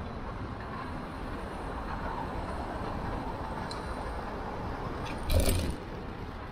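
Steady road and traffic noise heard while riding a bicycle through city streets, with one short, loud knock a little past five seconds in.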